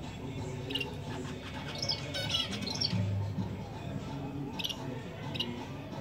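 Zebra finches giving short, high chirping calls several times, with a buzzy run of notes about two seconds in, over background music.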